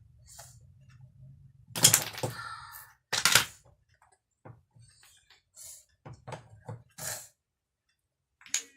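Wooden toy blocks knocking and clattering together: two loud knocks, then a run of lighter clicks and taps.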